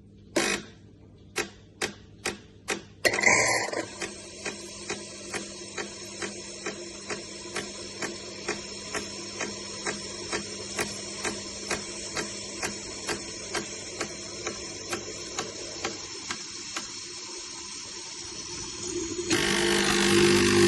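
A Cecotec Power Instant-ccino semi-automatic espresso machine. A few sharp clicks come first, then its pump starts and runs with a steady hum and regular pulses about two a second. About a second before the end a louder buzz sets in.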